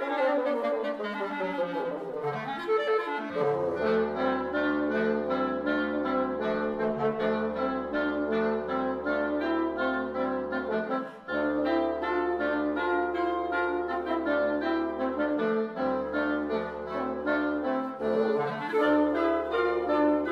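A wind quintet of flute, oboe, clarinet, French horn and bassoon playing live. A falling run at the start gives way to quick repeated-note figures over long held low notes.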